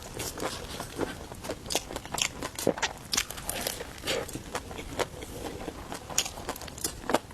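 Close-miked biting and chewing of a rou jia mo, a flatbread stuffed with chopped meat, giving many short, irregular crackles. The bread has gone a little soft since it was made, so the crunch is only slight.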